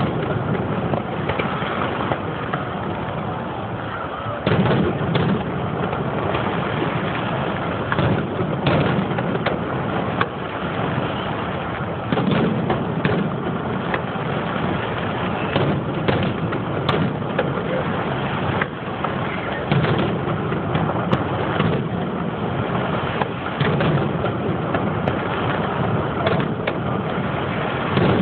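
Aerial firework shells bursting in a fireworks display: irregular bangs every second or two over continuous rumbling noise.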